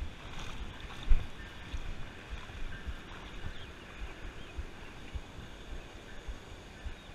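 Water sloshing as an angler wades through a shallow river, with uneven low thumps; the loudest thump comes about a second in.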